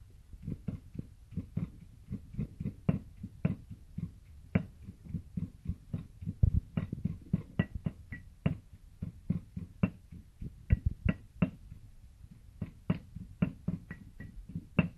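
Stone mortar and pestle pounding a spice paste: repeated knocks of the pestle, a few strokes a second and unevenly spaced.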